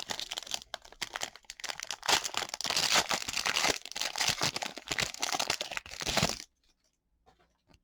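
Trading-card pack wrapper being torn open and crinkled: a dense run of crackling that stops abruptly about six seconds in.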